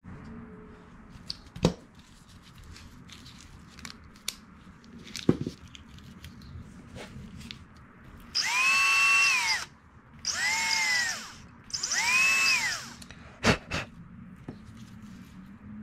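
Handheld power drill run in three short bursts, its motor whine rising and falling each time, as it bores into the ends of bamboo tube sections. A few sharp knocks of bamboo pieces being handled come before and after the drilling.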